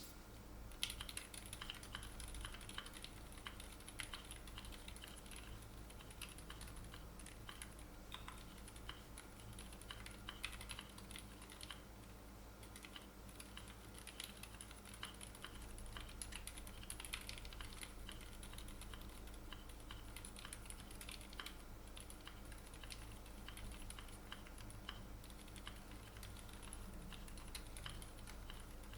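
Faint, muted typing on a Keychron Q3 mechanical keyboard fitted with Kailh Deep Sea silent switches and AKKO Macaw ASA keycaps: a continuous run of soft, damped keystrokes in a typing test.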